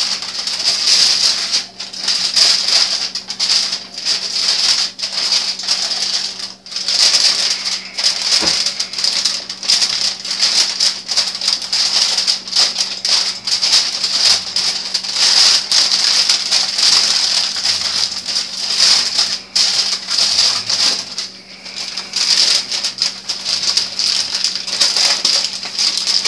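Aluminium foil crinkling and rustling continuously as it is wrapped and rolled around a roast by hand.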